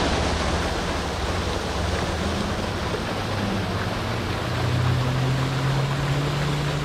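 Steady rushing and splashing of water from an artificial rock waterfall on a mini-golf course. A low hum grows louder underneath it about halfway through.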